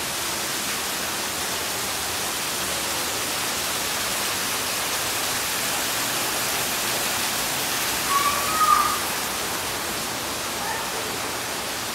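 Steady, even rushing noise, like flowing water or air, strongest in the high range. A short, slightly rising high tone sounds a little after eight seconds in, the loudest moment.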